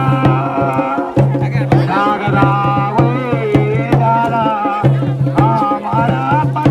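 Garhwali folk drumming for the Pandav Nritya: drums beaten in a dense, steady rhythm under a wavering, gliding melody, with a low sustained drone that drops out briefly a few times.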